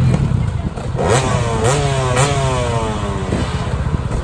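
Enduro dirt bike engines idling, with a rider blipping the throttle three times in quick succession, the revs jumping up and falling back each time.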